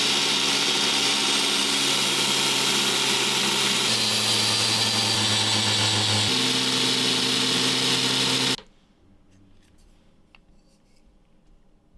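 Belt grinder running with the hiss of the belt sanding a knife's handle scales and steel tang. The motor hum changes pitch abruptly twice, then cuts off suddenly about two-thirds of the way through, leaving only a few faint clicks.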